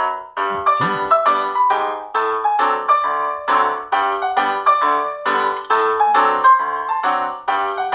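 Background piano music: a melody of single struck notes at an even, lively pace.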